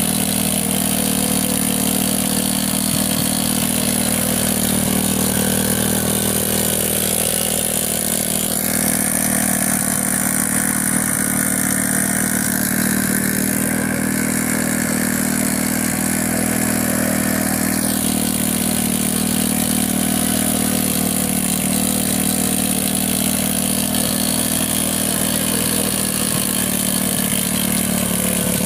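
Small motorcycle engine on a homemade mini tractor running steadily while the machine tills dry soil.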